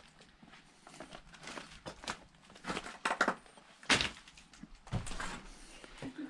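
Irregular crunching and scuffing of debris underfoot in a small, bare room, with two sharper knocks about four and five seconds in.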